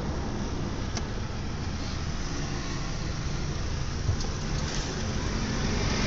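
Car driving in traffic, heard from inside the cabin: steady engine and road noise, growing a little louder near the end.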